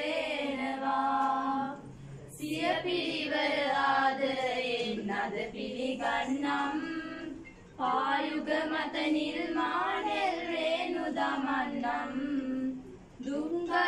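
A group of girls singing a song together in unison, in sung phrases broken by short pauses for breath about two seconds in, near the middle and near the end.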